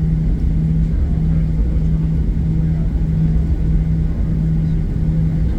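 Cabin noise of a Boeing 737-800 taxiing, its CFM56-7B engines near idle: a steady low rumble with a hum that cuts out briefly about every two-thirds of a second.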